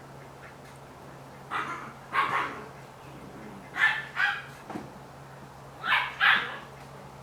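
Vizsla puppy barking: three pairs of short, high yapping barks about two seconds apart.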